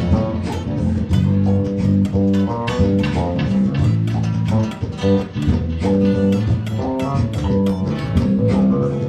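Live guitar and bass playing a tune, with quick plucked notes over changing bass notes.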